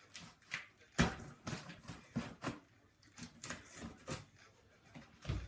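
Unboxing handling noise: a cardboard box and its packed accessories being rummaged through, with rustles and clicks and a sharp knock about a second in, then a low thump near the end.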